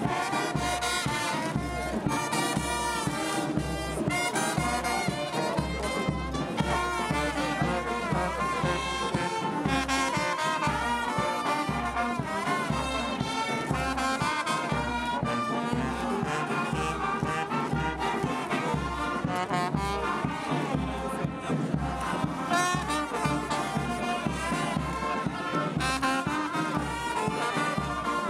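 Music led by brass horns, over a steady bass beat about twice a second.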